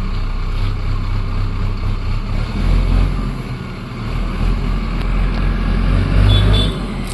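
JCB backhoe loader's diesel engine running under load. It grows louder about three seconds in and again near the end.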